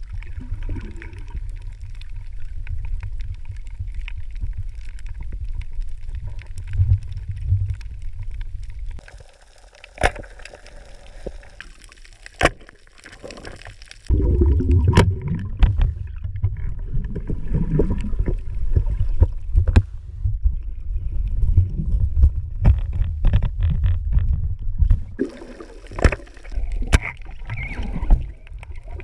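Muffled underwater noise: a low rumble of moving water with scattered sharp clicks and knocks, quieter for a few seconds in the middle.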